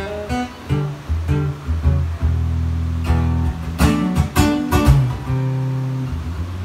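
Cutaway acoustic guitar played solo: picked single bass notes and chords, then a few sharp strummed chords about four seconds in.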